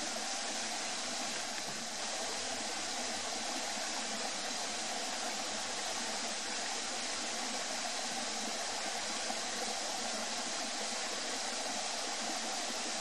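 Steady rushing of a small stream, an even hiss without breaks or distinct events.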